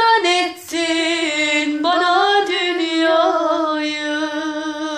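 A single high voice singing a Turkish folk-style song, gliding between notes with slight vibrato and then holding one long note through the second half.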